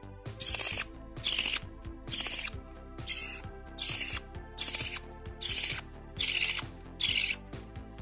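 Budgerigar chick making harsh, raspy begging calls as it is hand-fed from a syringe, about nine short calls in a steady rhythm, one every second or so. Background music runs underneath.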